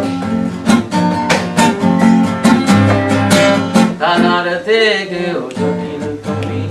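Instrumental song intro: acoustic guitar strummed in a steady rhythm, with a short wavering melodic line about four seconds in.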